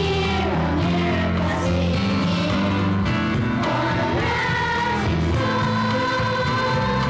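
Four young girls singing together into one microphone over instrumental accompaniment with held bass notes that change every second or so.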